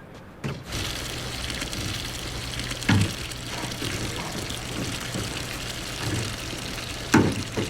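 A water tap runs steadily into a sink, switched on about half a second in. Something knocks sharply against it twice, the second time near the end.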